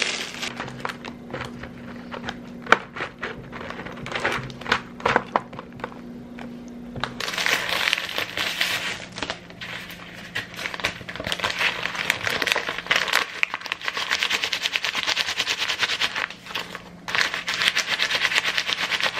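Scattered light clicks and rustles of dry puffed snacks and a plastic tub over a bowl. About seven seconds in, louder continuous crinkling takes over as a snack packet is handled, unfolded and shaken.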